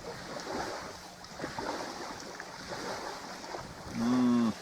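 Steady wind and lapping water on a reservoir shore, with wind buffeting the microphone. Near the end a person makes a brief hum-like vocal sound, held on one pitch for about half a second.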